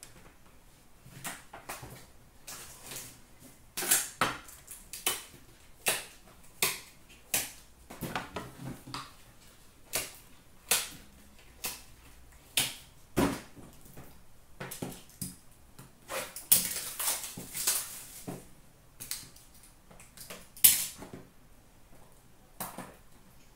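Hands handling cardboard trading card boxes and cards: a string of sharp crackles and taps, with a longer rustle about sixteen to eighteen seconds in.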